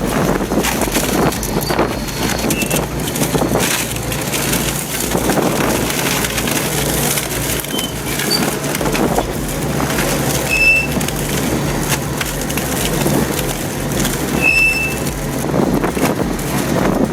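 Industrial shredder chewing through tree roots: continuous crackling, crunching and splintering of wood over the steady drone of the machine.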